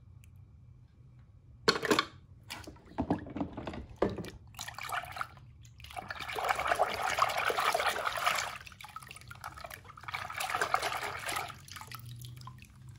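Water splashing and sloshing in a plastic tub as a hand dunks a die-cast toy car and swishes it through the water. A few sharp splashes start about two seconds in, followed by two longer stretches of swishing.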